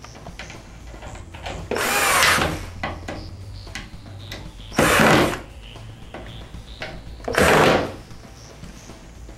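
Cordless drill running in three short bursts against a wooden cabinet, about two seconds, five seconds and seven and a half seconds in, its motor pitch rising and falling on the first.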